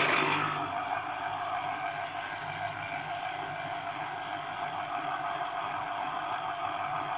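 Small electric citrus juicer whirring steadily as a halved orange is pressed down onto its spinning reamer cone.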